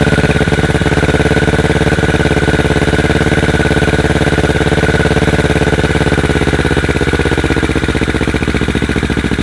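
Kawasaki Ninja 650R parallel-twin engine idling loud through an aftermarket Akrapovic-replica exhaust, an even steady pulsing, warming up from a cold start. It gets a little quieter near the end.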